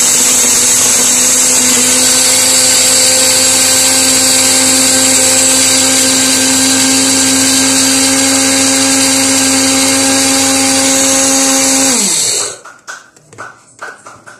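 Electric blender with a small glass grinding jar running steadily at full speed, grinding dried dates to powder. About twelve seconds in it is switched off and winds down with a falling pitch, followed by a few knocks as the jar is handled.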